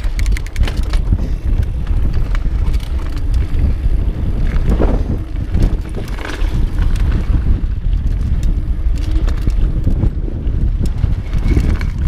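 Mountain bike descending a rocky dirt trail at speed: tyres rolling over rock and dirt, with the bike rattling and knocking over bumps again and again. Heavy wind noise on the action camera's microphone.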